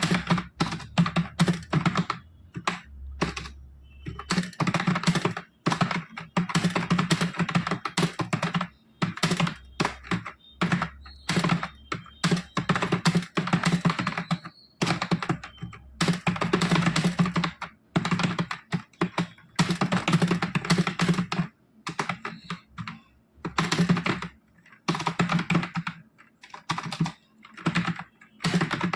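Fast typing on a computer keyboard: rapid key clicks in runs of a few seconds, broken by short pauses.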